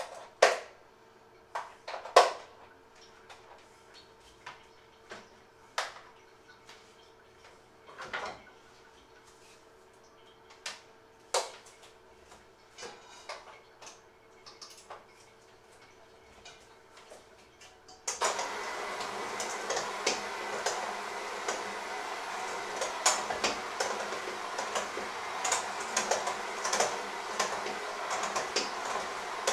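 Scattered clinks and knocks of utensils against stainless steel bowls. About eighteen seconds in, a handheld electric mixer switches on suddenly and runs steadily in a stainless steel bowl.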